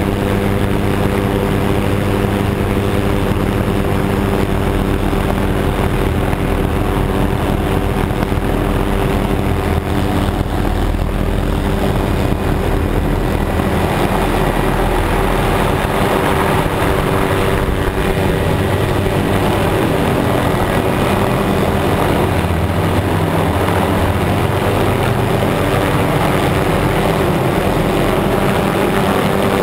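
Helicopter engine and rotor running steadily, heard from aboard: a constant droning hum under a rushing noise. The rushing grows fuller about halfway through as the aircraft flies low over the ground.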